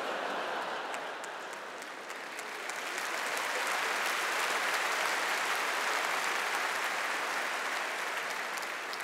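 Large audience in an arena applauding, swelling to a peak midway and fading near the end.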